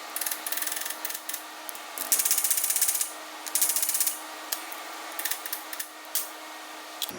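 A power tool working metal in short bursts, with two longer runs about two and three and a half seconds in and several brief bursts around them, over a faint steady hum.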